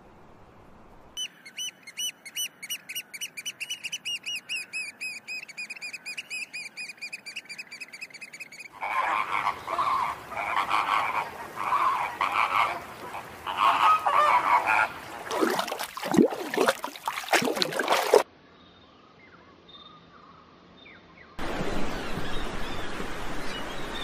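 A rapid run of high, repeated bird calls, several a second, gives way about nine seconds in to a flock of flamingos honking. A few loud sweeping rushes follow, then a short lull, and near the end a steady rush of waves.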